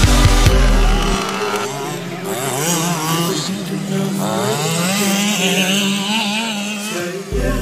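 Backing music stops about a second in, giving way to a large-scale petrol RC buggy's small two-stroke engine revving up and down as it drives over sand.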